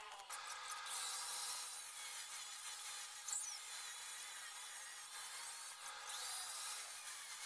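Handheld angle grinder with an abrasive disc grinding the welded steel rods of a wheel-rim grill: a steady, harsh grinding that starts about a third of a second in, with a brief break near the end.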